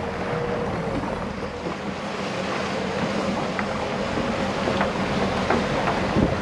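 A trolling boat's engine running at a steady hum, with wind on the microphone and water washing past the hull. A few faint clicks are heard here and there.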